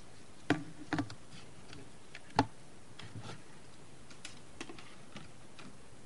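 Hard plastic clicks and knocks from handling a universal remote control and its charging cradle on a wooden desk. There is a click about half a second in, a quick double click about a second in, and a louder knock about two and a half seconds in, followed by a few faint ticks.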